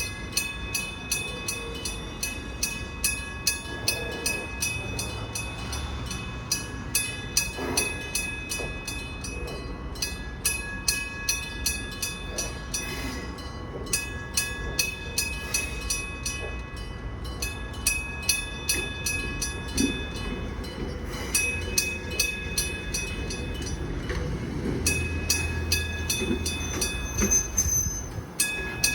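Electric-bell railroad crossing signal ringing, its bell struck about twice a second with each strike ringing on. Under it a Kumamoto Electric Railway 03-series electric train rumbles slowly over the crossing, the rumble swelling twice, with some wheel squeal.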